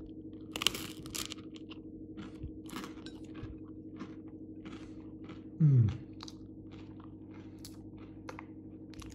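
A crunchy bite into toasted French-bread pizza crust under a second in, then chewing with the mouth close to the microphone, a run of short crunches two or three a second. About halfway through, a short low falling 'mm' from the eater is the loudest sound, over a faint steady hum.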